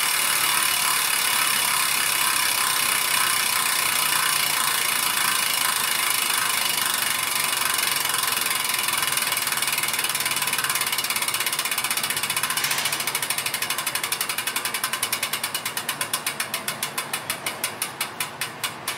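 Campagnolo Bora Ultra 80 rear wheel's freehub ratchet clicking as the wheel freewheels. It is a fast, steady buzz at first. After about twelve seconds the clicks spread out, further and further apart, as the wheel slows toward a stop.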